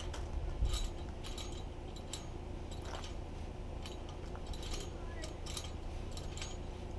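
Scattered light clicks and clinks as a plastic stackable RV stabilizer jack is set in place and tightened by hand against the camper's frame.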